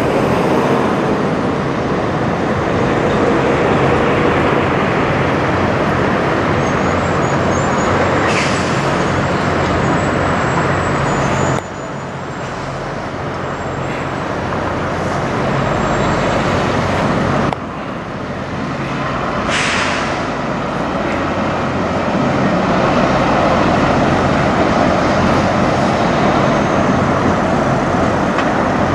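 Peterbilt semi truck's diesel engine running steadily as it pulls a loaded trailer slowly past, with two short hisses of air from its air brakes, about a third and two thirds of the way through.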